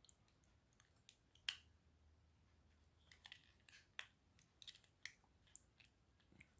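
Faint, scattered small clicks and ticks from handling a touch lamp's plastic-cased control module and touching it with a thin metal tool. There is one sharper click about a second and a half in, and a run of light clicks in the second half.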